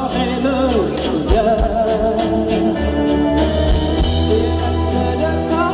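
A live pop band with keyboards, guitars and drums playing under a singer who holds long, wavering notes, heard from among the audience at an open-air concert.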